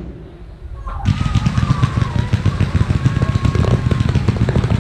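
Fireworks volley fired from the ground: a dense, rapid string of launch bangs and crackles from a row of comets and mines, starting suddenly about a second in.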